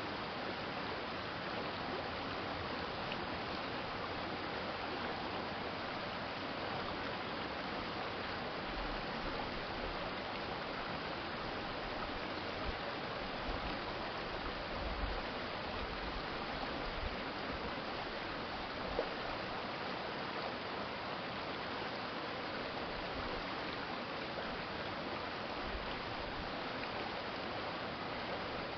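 Steady rush and babble of a shallow stream flowing, with a few faint low rumbles in the middle.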